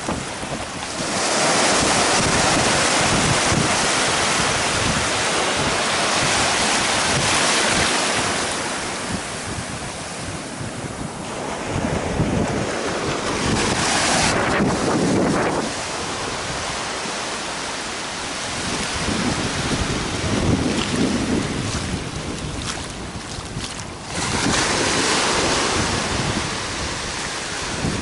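Small ocean waves washing up over a flat sandy beach, the surf hissing as it swells and fades over several seconds at a time. Wind buffets the microphone with a low rumble.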